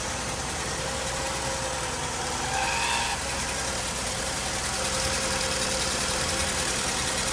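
Mercedes-Benz 300E straight-six idling with a thin, steady whine over it. The whine comes from a failing water pump and shows only at cold start.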